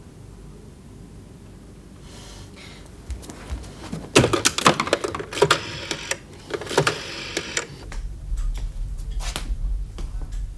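Rotary-dial telephone being used: the handset is handled and the dial turned, giving a run of sharp clicks and knocks about four to seven seconds in, with a few scattered clicks after.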